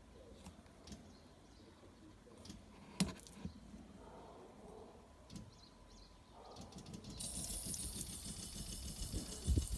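A few faint clicks and knocks, then about seven seconds in a portable water shower starts spraying with a steady hiss. A low thump comes near the end.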